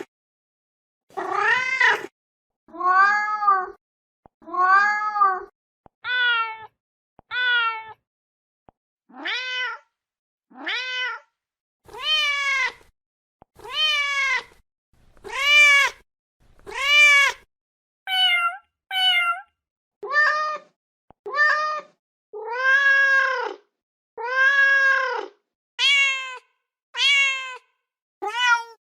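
A mother cat meowing over and over to call her kittens: about twenty separate meows, each under a second long with short pauses between them, many arching up and down in pitch.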